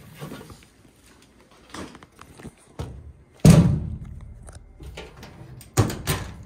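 A loud thud about halfway through, dying away over a second, then two sharp knocks in quick succession near the end.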